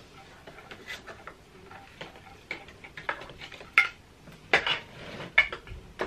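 Hard plastic clicks and knocks from a Shark upright vacuum cleaner as its accessory tools are handled and clipped into the tool holders on its body: a string of short, sharp clicks, the loudest a little before the middle and two more near the end.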